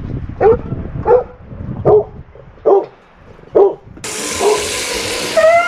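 A dog barks five times in sharp, evenly spaced barks, about one every three-quarters of a second. A little after four seconds this gives way to the steady hiss of water spraying from a hose. Near the end a dog starts a high, wavering whine.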